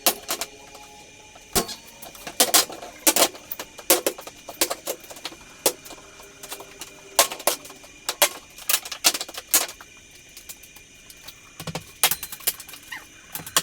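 Irregular sharp metallic clinks and knocks, some ringing briefly, as of metal tools and garage door hardware being handled and struck.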